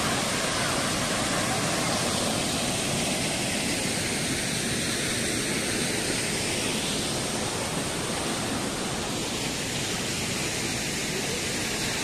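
Small forest waterfall pouring steadily with fair force, an even rushing of water.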